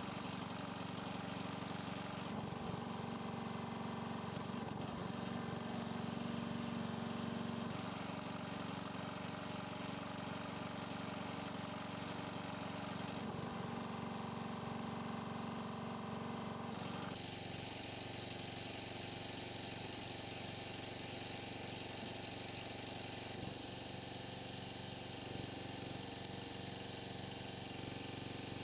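Small gasoline engine of a homemade hydraulic log splitter running steadily while logs are split. About two-thirds of the way in, the sound turns slightly quieter and duller.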